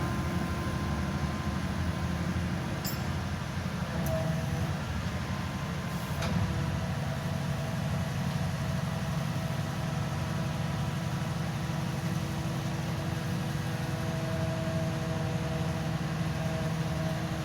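Engine and hydraulic system of a hydraulic static pile driver running steadily with a low hum, a higher whine coming and going over it, and a few light clicks around three to six seconds in.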